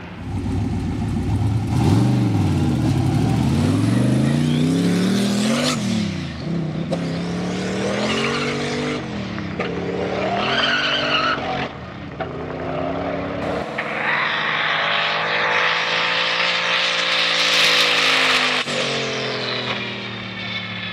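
Chevy S-10's turbocharged 403-cubic-inch LS V8 at full throttle on a half-mile pass, revs climbing and dropping again and again as it shifts, with the tires spinning. About two-thirds of the way in it turns to a smoother engine tone that swells and falls over a broad rush of noise.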